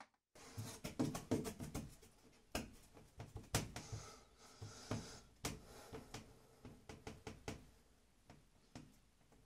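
Irregular light knocks and rattles from a white wooden crib side, with a plexiglass sheet screwed inside it, being gripped and handled; the knocks come several a second at first and thin out towards the end.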